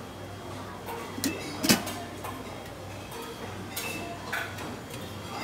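Stainless steel lids on buffet serving pots clinking and clattering as they are lifted and set back, with a few sharp knocks, the loudest about a second and a half in, over a steady low hum.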